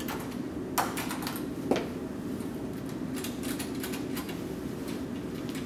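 Small metal clicks and ticks of copper connector pieces and set screws being handled and fitted by hand in a busbar end feed: two sharper clicks about a second in, then lighter ticks. A steady low hum sits underneath.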